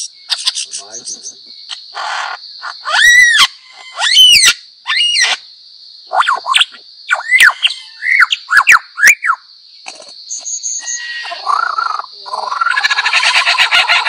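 Lyrebird singing a medley of mimicked calls: a few loud ringing whistles that swoop up and down, then a run of shorter chirps, and near the end a fast buzzy rattle. A steady high-pitched hum runs underneath.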